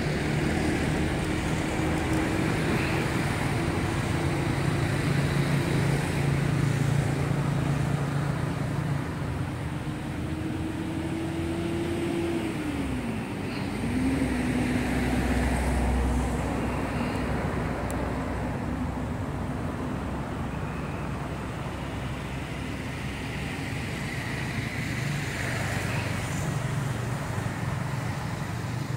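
Road traffic: cars and other vehicles driving by on the road. An engine drone holds a steady pitch, dips sharply and recovers about halfway through.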